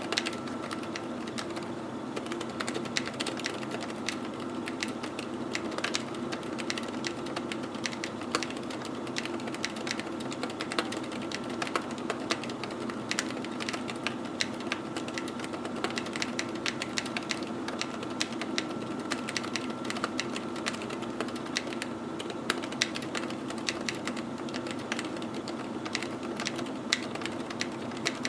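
Continuous typing on a mechanical keyboard fitted with Aliaz 60 g silent tactile switches and PBT keycaps: a steady, irregular patter of soft keystroke clicks. Under it runs a steady hum of computer fan noise.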